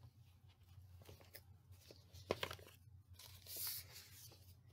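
A picture book being opened and its pages handled: faint paper rustles and light taps, with a brief louder rustle about three and a half seconds in.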